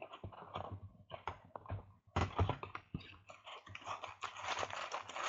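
A few light clicks, then from about two seconds in a dense crinkling rustle: the plastic wrap being torn off a sealed box of trading cards as it is opened.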